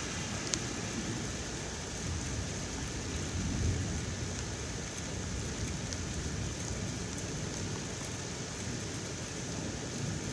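Heavy rain falling steadily, with a low rumble that swells briefly about three to four seconds in.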